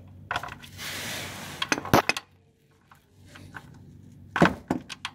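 Scattered sharp metallic clinks and knocks of a socket wrench being fitted to the oil pan drain plug, with a brief rustling hiss about a second in and a cluster of clicks near the end.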